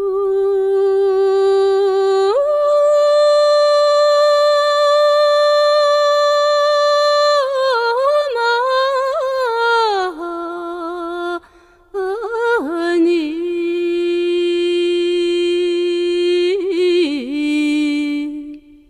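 A solo female voice singing unaccompanied in Tibetan devotional style: long held notes, a step up to a higher note about two seconds in, then ornamented, wavering runs that fall back down. The voice breaks off briefly about halfway, then holds long lower notes with a final flourish near the end.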